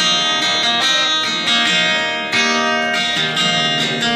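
A live band playing without vocals, led by a steadily strummed acoustic guitar.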